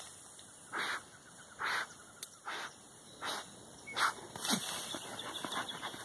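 Dog digging at a tegu lizard's burrow with its head in the hole: a run of short, noisy bursts, roughly one a second.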